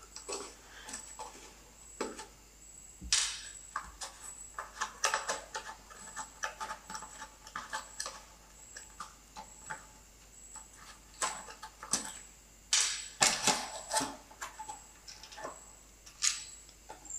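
Cardboard packaging rustling and scraping as a plastic toy RC truck is worked free of its cardboard insert, with irregular small clicks and knocks throughout.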